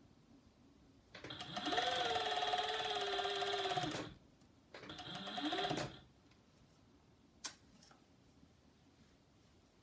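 A Juki MO-6700-series overlocker (serger) stitching a knit leg band. It runs in two spells: the first is about three seconds, its motor speeding up and then holding steady; the second is shorter and speeds up and slows down again. A single sharp click follows.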